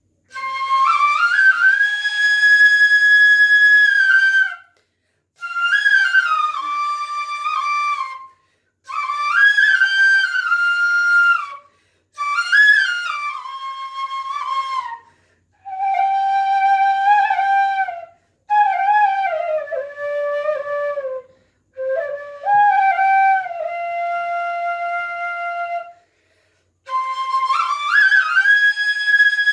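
Solo bansuri, the Indian bamboo flute, playing a Chhattisgarhi tune (dhun) unaccompanied. It comes in short phrases of three to four seconds with a brief pause between each, the melody sliding between notes.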